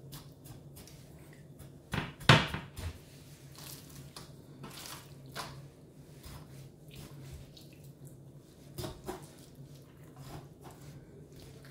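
Knife cutting into a raw pork shoulder in an enamel roasting tin: scattered light taps and knocks of the blade and meat against the tin, with one sharp knock about two seconds in. A faint steady low hum runs underneath.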